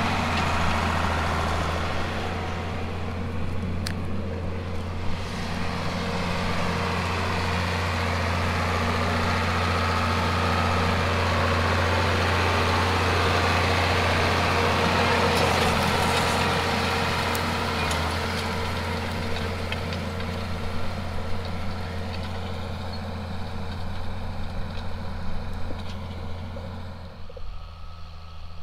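John Deere 4440 tractor's diesel engine running steadily under load as it pulls a liquid fertilizer applicator. It grows louder as the tractor passes close by, then fades as it moves away, and drops off sharply near the end.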